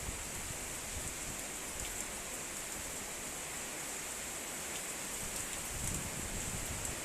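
Heavy rain mixed with sleet falling steadily, a constant hiss with faint scattered ticks of drops, and a little low rumble near the end.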